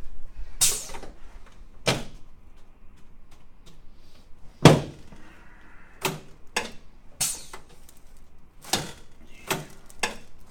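About nine sharp knocks and clunks at uneven intervals on a chiropractic adjusting table as the patient settles onto her back and is positioned. The loudest one comes about halfway through.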